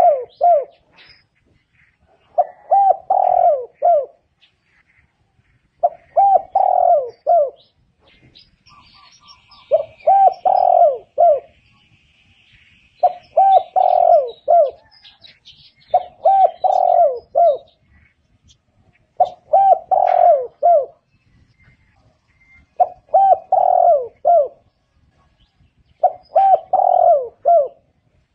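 Spotted dove cooing: a short phrase of several low coos repeated about every three seconds, some nine phrases in all.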